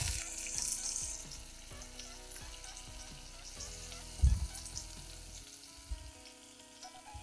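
Butter sizzling as it melts in a hot pot, the hiss loudest as it goes in and dying down over the first couple of seconds. A dull knock about four seconds in.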